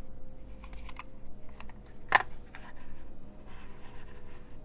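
Cheap plastic optical mouse being handled and slid on a wooden bench: scattered light clicks and taps, with one sharp click about two seconds in.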